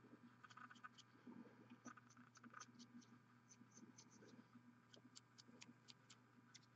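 Faint, irregular scratching and ticking of a paintbrush dry brushing a plastic miniature, its nearly dry bristles flicked lightly across the raised detail, over a low steady room hum.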